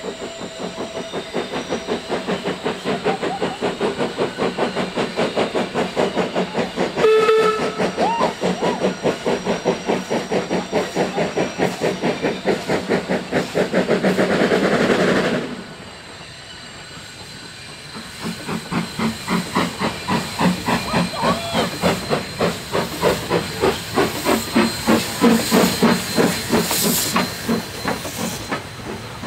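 PB15 class 4-6-0 steam locomotive working under steam, its exhaust beating in a fast, even chuff with a steady hiss of steam. About seven seconds in comes a short whistle blast. Around halfway the chuffing cuts off suddenly to a quieter hiss, then picks up again a few seconds later.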